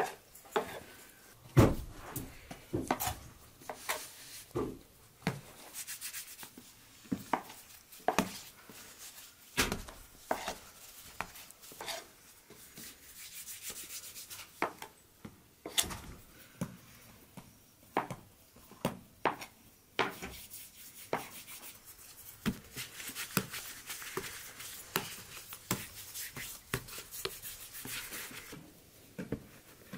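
Hands working bread dough on a floured wooden board: irregular soft thumps and pats as pieces of dough are slapped and pressed on the wood, with dry rubbing of floured hands and dough that grows stronger for several seconds in the second half.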